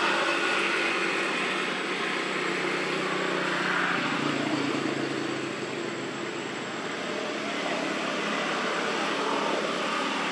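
A steady, distant engine drone, with no sudden sounds.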